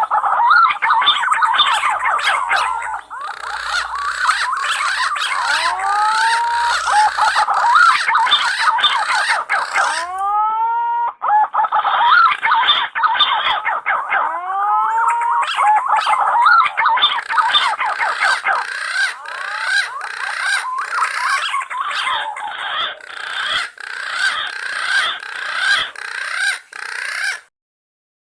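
Punai (green pigeons) calling: many overlapping rising, whistled notes, with a short break about ten seconds in. The calls stop abruptly about a second before the end.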